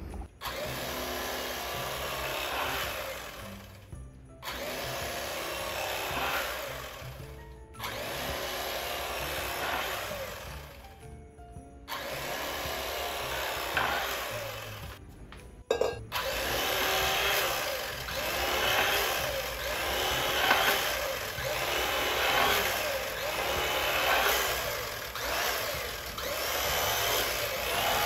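Corded electric knife running as it cuts through a loaf of bread and then dices the slices, with background music. The sound breaks off briefly several times in the first half, and later comes in regular strokes.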